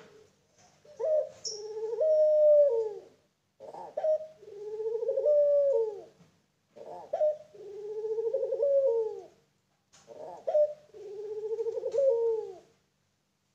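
Young puter pelung dove, a domestic ringneck dove bred for its long coo, cooing four times. Each coo is a short opening note followed by a long drawn-out note that falls away at the end, about every three seconds.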